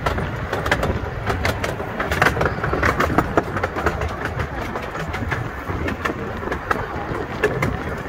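15-inch gauge miniature railway coach rolling along the track: a steady low rumble with many quick, irregular clicks and rattles from the wheels on the rails.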